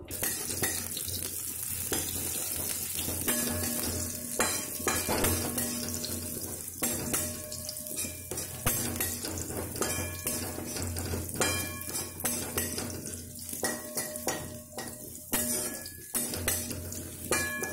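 Sliced onions sizzling in hot oil in a steel kadai, with a metal spatula stirring and scraping against the pan over and over. The onions are being fried until they brown.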